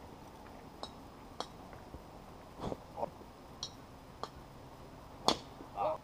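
Faint outdoor background with scattered sharp clicks and ticks, the loudest about five seconds in, and a few short chirps around three seconds and near the end.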